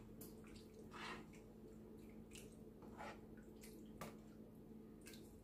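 Faint scrapes and liquid sounds of a metal spoon stirring thin tomato sauce in a stainless steel pan, a few brief touches every half second or so over a low steady hum.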